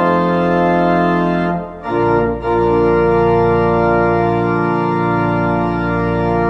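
Organ playing slow, sustained chords. About two seconds in the chord changes and a deep bass note comes in under it, and the new chord is held.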